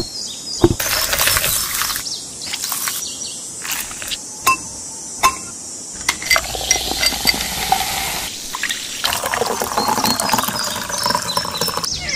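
Ice cubes clinking as they drop into a tall drinking glass, then liquid poured in over them.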